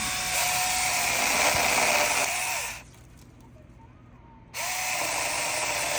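A 6-inch cordless mini chainsaw running. It runs for almost three seconds, stops for about a second and a half, then starts again.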